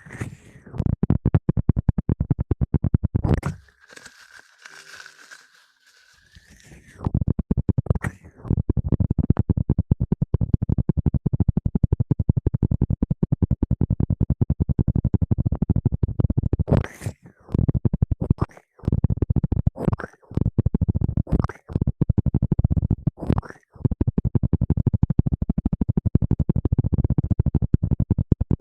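Fast, continuous scratching and rustling right against the microphone, loud and low-heavy. It breaks off in short pauses several times in the second half. A few seconds in there is a quieter stretch with a steady high tone.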